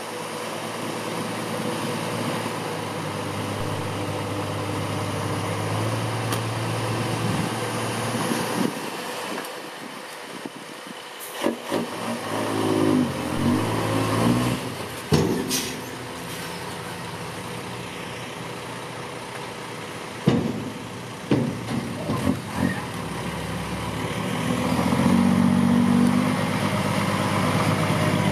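Six-wheel dump truck's diesel engine running, rising in pitch twice. Several sharp knocks and clanks come partway through.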